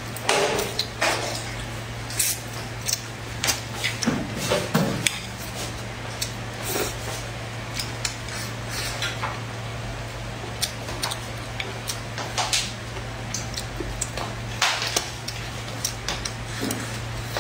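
Chopsticks clicking and scraping against a ceramic rice bowl in many short, sharp clinks, with close-up chewing and mouth sounds of eating. A steady low hum runs underneath.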